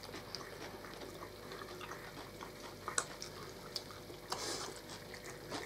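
Quiet eating at a table: faint chewing with a few light clicks of forks against plates and bowls, and a short soft slurp-like hiss a little past the middle.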